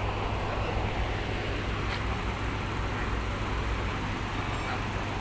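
A large bus engine idling steadily, a constant low hum.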